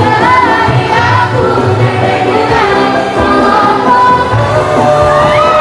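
Loud music with voices singing a melody over a pulsing bass beat.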